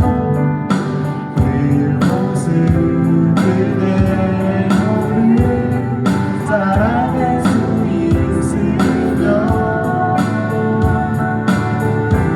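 Live band music with singing: sustained guitar and keyboard chords over a steady drum beat.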